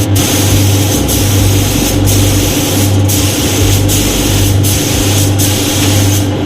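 Spray gun hissing steadily as paint is sprayed, breaking off for an instant about once a second between passes, over a steady low hum.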